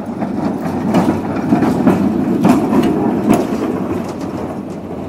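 Vintage tram passing close, its wheels rumbling on the rails and knocking sharply several times over track joints and crossings, loudest in the middle and fading as it moves away.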